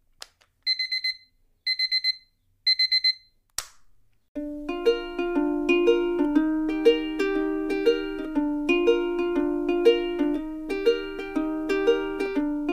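Electronic alarm clock beeping in three quick bursts of several high beeps each, followed by a single click. Then upbeat background music with plucked notes starts about four seconds in and carries on.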